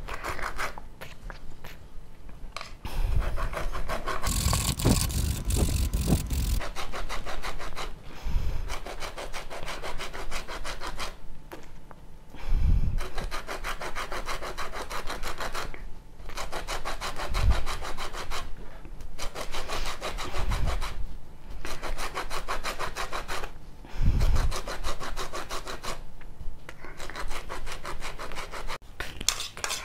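Orange peel being grated on a flat stainless-steel hand grater: fast rasping strokes in runs broken by short pauses, with a few dull knocks along the way.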